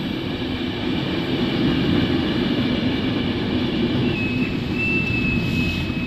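Regional passenger train at the station platform, a steady low rumble. A high, thin, steady whine joins about four seconds in.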